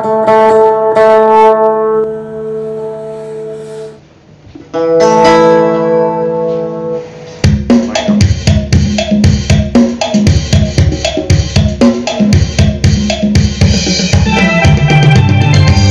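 Phin (Isan Thai lute) plucking a melody over ringing drone notes; about seven and a half seconds in, a steady drum beat with a bass line comes in under the phin.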